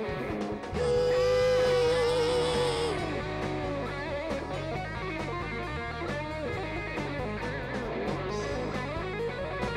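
Live rock band: an electric guitar solo over bass and drums. The guitar holds one long wavering bent note about a second in, then runs into fast, busy phrases.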